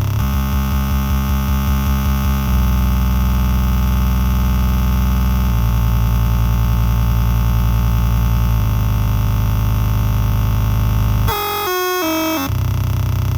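Error Instruments Data Synth putting out a dense, buzzing low drone that shifts to a new pitch pattern every few seconds. Near the end it breaks briefly into a run of stepping high bleeps before the low drone returns.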